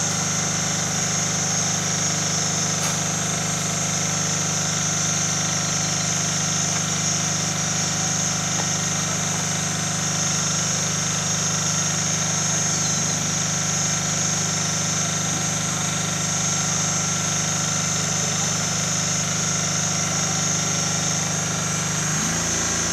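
A steady engine-like idling hum under a steady high hiss; the hum changes abruptly near the end.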